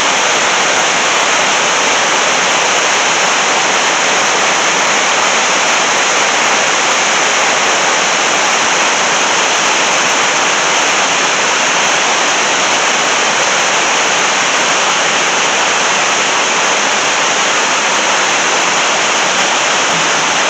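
River white water rushing over a rock ledge into a pool: a loud, steady rushing roar without a break.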